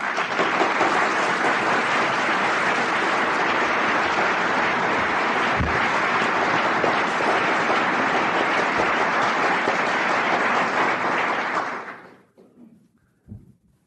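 An audience applauding, steady for about twelve seconds, then dying away near the end.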